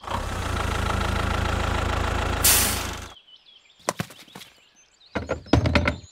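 Diesel tractor engine sound running steadily, with a rising hiss just before it cuts off sharply about three seconds in. After a quieter stretch of a few clicks, a short burst of engine rumble with knocks comes near the end.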